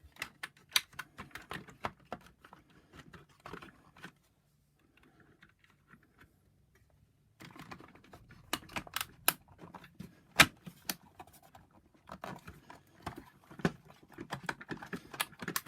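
Hard plastic clicks, taps and light scraping from the Shark DuoClean vacuum's power nozzle housing and wiring being handled and pressed back into place during reassembly. About four seconds in, the handling stops for roughly three seconds, then resumes with a run of sharper clicks.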